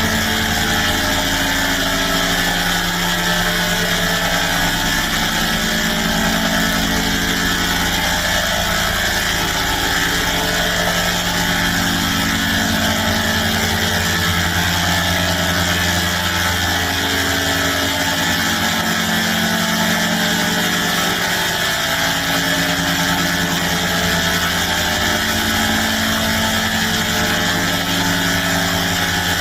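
Sustained electronic chord drone, several steady tones held together without a break, slowly wavering and swelling every few seconds.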